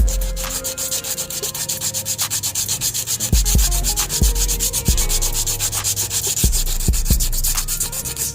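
Sanding body filler on a car's engine bay: fast, even, scratchy back-and-forth strokes of sandpaper. Several dull low thumps come in partway through.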